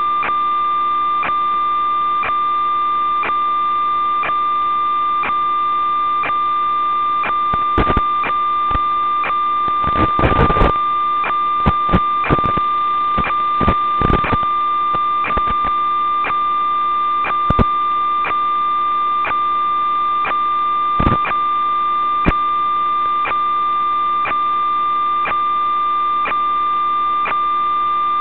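Steady electronic tone with a buzz of weaker tones under it, broken by regular clicks about twice a second and a few bursts of crackle about a third of the way in: interference on the audio channel of an analog FPV video downlink rather than the sound of the drone.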